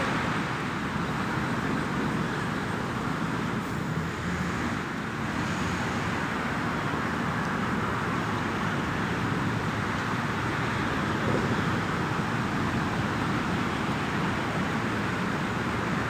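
Steady low rushing noise with a rumble, unchanging throughout.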